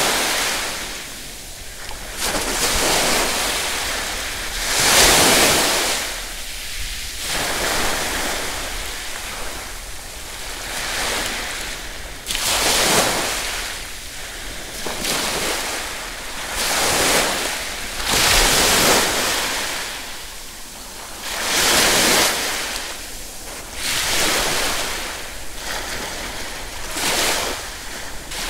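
Ocean waves breaking on the shore: a rush of surf swells and fades every few seconds.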